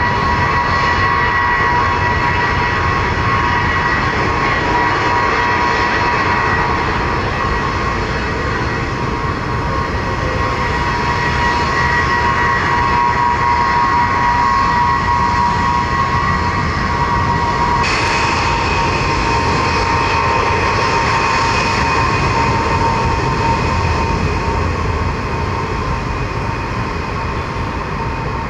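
Jet aircraft engines running loudly with a steady whine and roar; about eighteen seconds in, the whine jumps up in pitch, and the sound eases slightly near the end.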